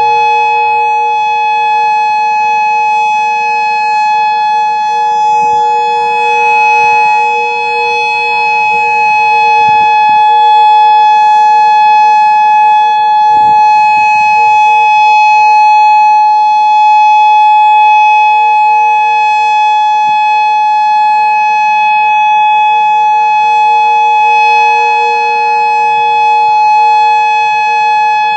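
Modulator 4016 electronic tornado siren sounding its steady alert tone in a test of the outdoor warning system: one loud continuous tone that holds its pitch, with no rise or fall.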